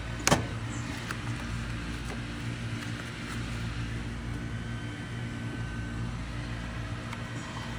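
Steady low mechanical hum of a running motor, with one sharp snap about a third of a second in.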